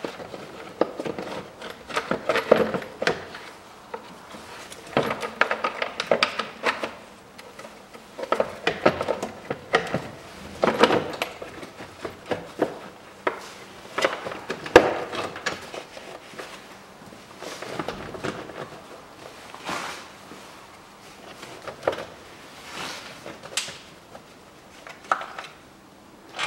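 Hard plastic air filter housing being set in place and handled, giving irregular knocks, clicks and scraping clatter.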